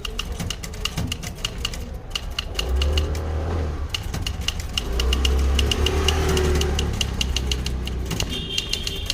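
Manual typewriter keys striking in quick, even succession, each strike a sharp clack. Underneath, an engine rumbles, loudest in two spells around the middle.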